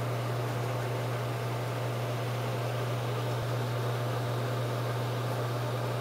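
Panasonic EAS-6PH31CV1 5.5 cm speaker unit sounding a steady low hum, with a faint hiss above it.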